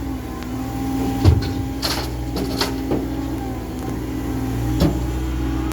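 Caterpillar M315F wheeled excavator's diesel engine running steadily, with about five sharp metallic knocks from the machine at work, the loudest a little over a second in.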